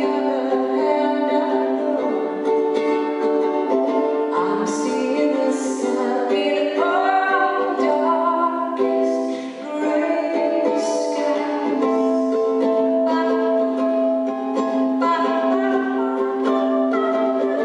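A woman singing a slow, gentle song live, accompanying herself on a strummed ukulele.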